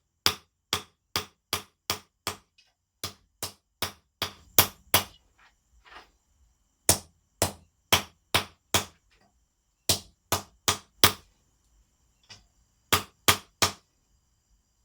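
Blacksmith's hammer striking steel cable stock on an anvil to forge a knife: sharp blows at about two to three a second, in runs of four to six with short pauses between.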